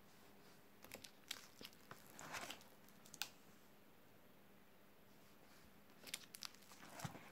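Clear plastic sheet protectors in a ring binder crinkling and clicking as pages are turned, in two short bursts of rustling, the first about a second in and the second near the end.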